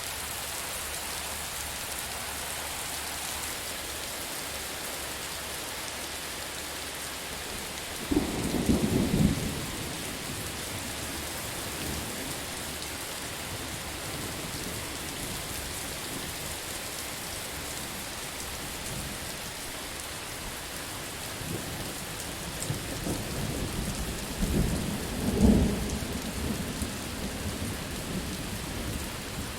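Steady heavy rain hissing, with a sudden crack of thunder about eight seconds in and a longer rolling thunder rumble building and fading in the second half.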